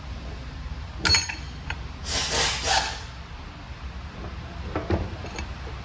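A sharp metallic clank with a brief ring about a second in, then a short rushing, hiss-like noise, and a few light clicks near the end: tools and steel parts being handled while the reverse switch is fitted into an Eaton Fuller transmission shift top.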